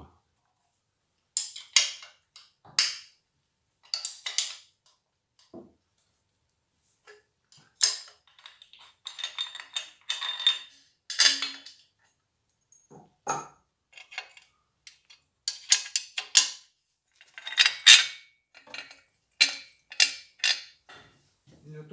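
Irregular sharp metal clinks and short rattles of hand tools and bolts as a wheeled steel cradle is unbolted from a V8 engine block. The clinks come busier in clusters in the middle and second half.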